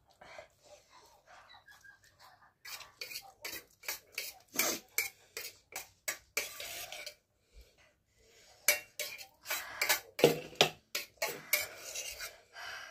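Metal fork clinking and scraping against a steel plate over and over as noodles are eaten, with many short sharp clicks that come thicker about three seconds in.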